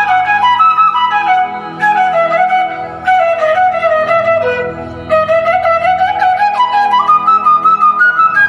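Instrumental background music: a single melody line that slides between notes, over a low, steady accompaniment.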